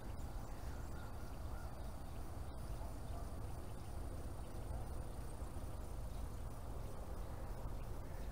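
Steady low wind rumble on the microphone, with no clear event standing out.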